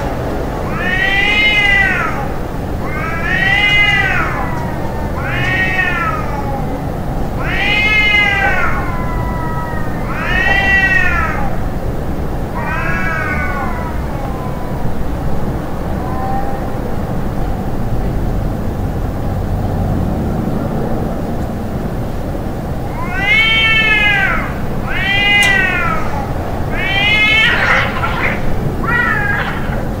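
Domestic cat meowing over and over, each meow drawn out and rising then falling in pitch, about one every two seconds. After a pause of about ten seconds there are three more meows, then a few short, choppy calls near the end, over a steady low background rumble.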